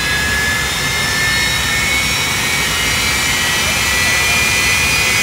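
Jet engine of the AfterShock jet-powered fire truck running up: a loud, steady rush with a high whine slowly rising in pitch.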